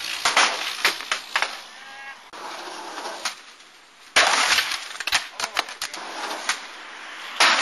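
Skateboard landing hard on concrete after a big ollie down a stair set: the deck and wheels slap down with sharp clacks, then clatter and roll. A second hard landing with a burst of noise and a string of knocks comes about four seconds in.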